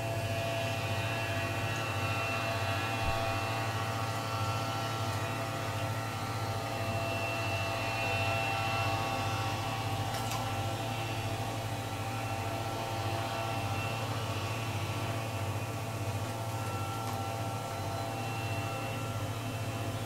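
Steady electrical mains hum with a faint even hiss underneath, unchanging throughout.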